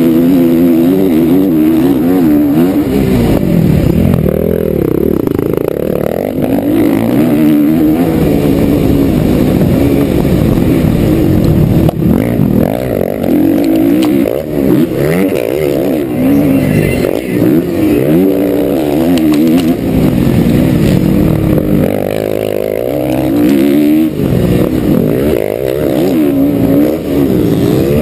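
Motocross bike engine heard close up from on board, loud, its revs rising and falling over and over as the throttle is worked and gears change.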